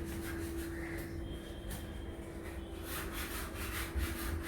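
Hand sanding of dried wall putty, sandpaper rubbing across the wall in quick repeated strokes, with a steady hum underneath.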